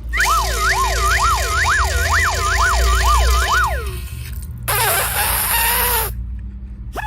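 Siren-like wailing: several tones sweeping up and down together for about three and a half seconds. It is followed by a short hissing whoosh with a rising whistle.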